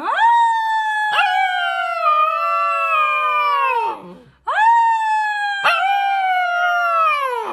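Husky-type puppy howling: two long howls, the first about four seconds and the second about three. Each rises sharply at the start, then slides slowly down in pitch and drops off at the end. Each has a brief catch in the voice about a second in.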